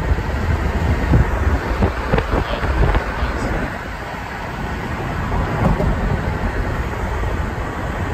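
Road and wind noise of a car driving, heard from inside: a steady low rumble with a few brief knocks in the first few seconds.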